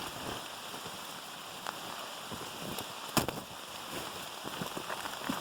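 Steady rain falling, an even hiss with scattered drop ticks, and one sharp knock about three seconds in.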